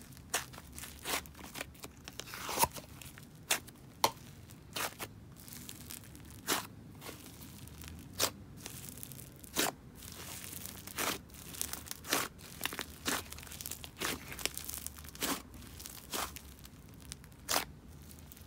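Inflated clay-heavy butter slime being pressed and folded by hand, giving off irregular sizzling crackles and pops about one or two a second, two of them louder early on.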